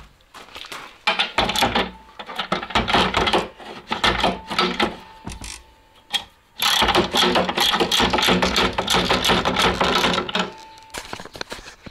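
Socket ratchet wrench clicking fast as a nut is run down on a bolt holding a ski widener to a snowmobile ski. It goes in two long runs, the second starting about seven seconds in after a short pause.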